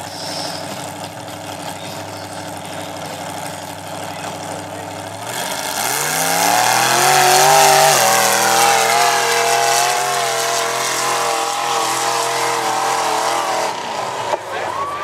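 Lifted mud-bog pickup on tractor tires, its engine idling steadily, then revving sharply upward about five seconds in as the truck launches down the mud track. The engine is held at high, wavering revs before easing off near the end.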